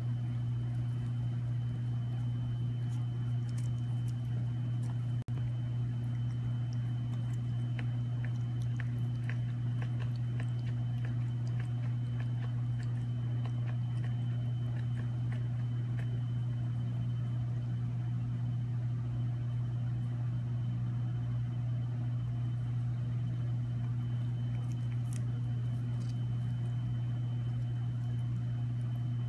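A steady low hum throughout, with faint crisp clicks now and then from a kitten chewing lettuce and carrot.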